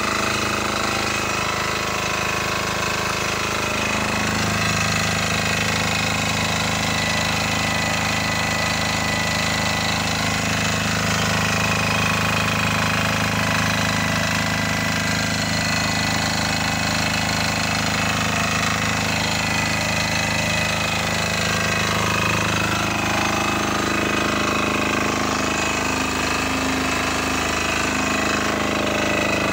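Lutian LT5900E portable generator's 7 HP single-cylinder air-cooled diesel engine running steadily, its low note shifting slightly about four seconds in and again a little after twenty seconds.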